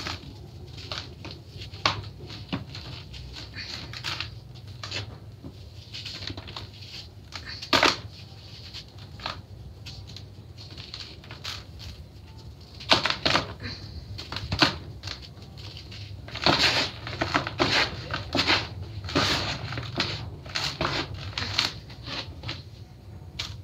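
Hands crumbling and squeezing damp, gritty chunks in a plastic tub: irregular crunching and crackling, sparse at first and busiest in clusters through the second half.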